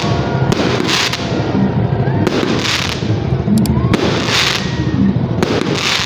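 Aerial fireworks going off in quick succession: a continuous crackle with louder bursts of hiss about every second.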